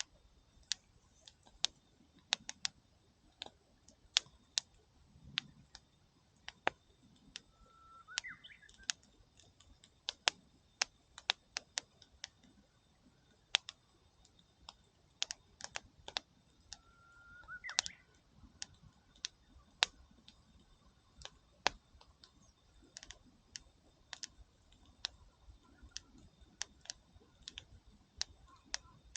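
Campfire wood crackling and popping: irregular sharp snaps, several a second at times, with a short rising whistle twice, about 8 and 18 seconds in.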